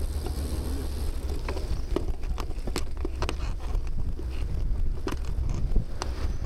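Wind buffeting the microphone of a bicycle-mounted camera while riding, a steady low rumble, with irregular sharp clicks and knocks starting about a second and a half in.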